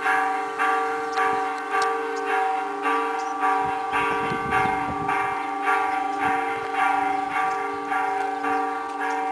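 Church bells ringing, struck in a steady rhythm of about five strokes every three seconds, with the tones of several bells hanging over one another.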